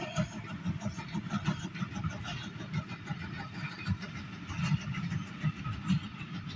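A steam locomotive working a passenger train, heard from a distance: a run of low, uneven exhaust beats over the rumble of the coaches on the rails.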